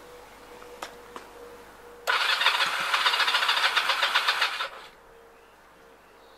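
Honda CD250 engine being cranked over for about two and a half seconds, turning over with a fast, even pulsing, then stopping abruptly. This is a start attempt after the bike has stood for about two months. A couple of faint clicks come before it.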